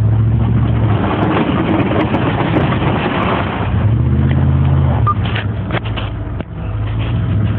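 Dodge Ram pickup's engine running under load while plowing snow, with a loud steady rush of wind and snow noise. The engine note shifts about four seconds in, and a few sharp knocks come between about five and six seconds in.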